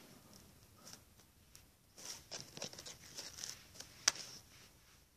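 Slime being squished and pulled in the hands, giving quiet sticky crackles and small clicks, busier from about two seconds in, with one sharper click about four seconds in.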